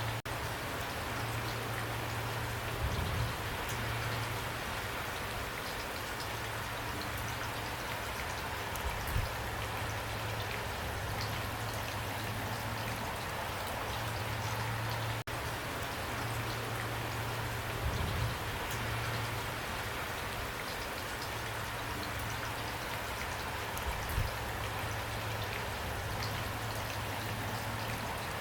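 Steady heavy rain pouring down in an even hiss, with a few louder low drops or thuds landing now and then.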